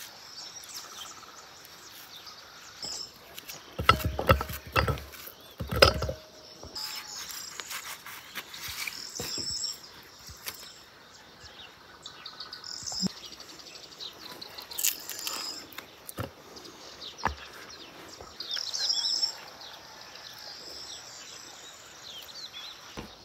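Birds chirping and insects trilling in the open countryside, with knocks and small clicks from hands and utensils as an avocado is cut and scooped into a glass bowl; the loudest knocks come in a cluster around four to six seconds in.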